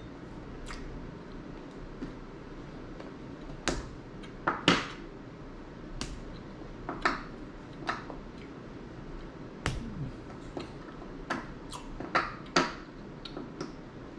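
Scattered short sharp clicks and light taps, about a dozen at irregular intervals, the loudest a little under five seconds in, from cake being picked apart by hand on a wooden board.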